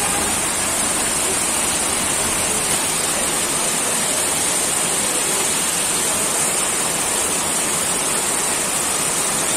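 Heavy monsoon downpour splashing onto a paved road, a steady dense hiss.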